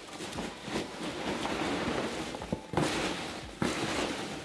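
Rummaging and rustling through packing material in a cardboard shipping box, with two sharper knocks about two-thirds of the way through.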